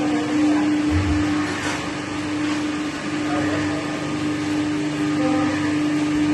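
Automatic khoya kadhai plant running: a steady machine hum with a constant hiss over it.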